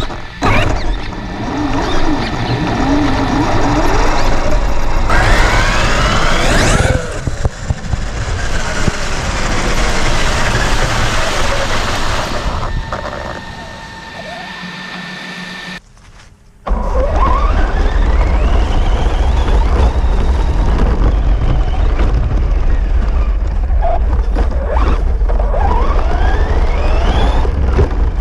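Electric motor of a Traxxas RC truck whining up and down in pitch as it speeds up and slows, over a rough rumble and wind on the onboard camera's microphone. It drops quieter for a couple of seconds about two-thirds of the way through, then comes back loud.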